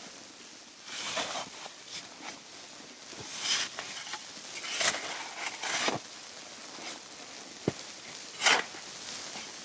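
Tent fabric rustling and flapping in irregular gusts, heard from inside a snow-covered tent, over a steady hiss; the loudest flap comes near the end, with a single sharp tick just before it.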